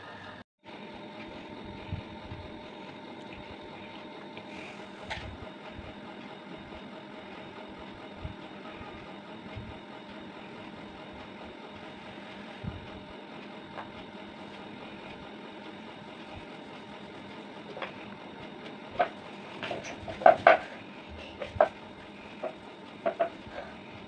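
A steady mechanical hum in the room, with a wooden rolling pin now and then knocking against a wooden roti board. Near the end comes a quick run of sharp, loud wooden knocks and clatters as the pin and board are handled.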